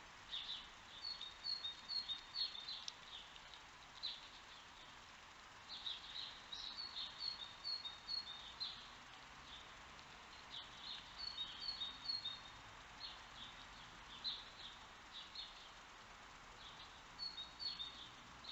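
Songbirds singing: short phrases of high, quick chirps, several repeated notes each, recurring every couple of seconds over a faint steady hiss.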